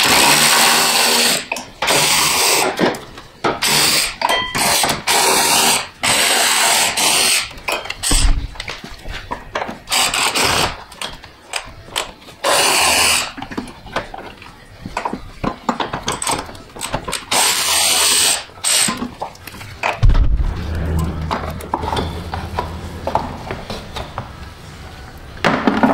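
Cordless electric ratchet running in repeated short bursts of about a second, backing out bolts on the radiator's upper support. Short clicks and clinks of tools and parts being handled come between the bursts.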